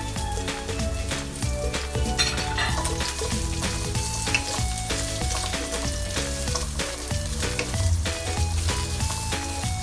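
Garlic and onion sizzling in hot oil in a nonstick wok, stirred with a wooden spatula that adds small scraping clicks. Background music with a stepping melody plays throughout.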